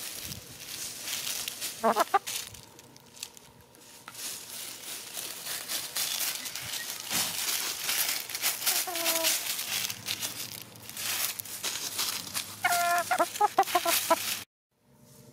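Hens clucking while scratching and pecking in dry leaves close by, the leaf litter crackling throughout. A short cluck comes about two seconds in, a two-note call near the middle, and a quick run of clucks near the end before the sound cuts off suddenly.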